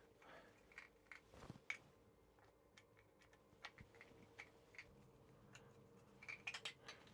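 Faint, scattered small clicks and ticks of a screwdriver undoing a small T10 Torx screw and drawing it out.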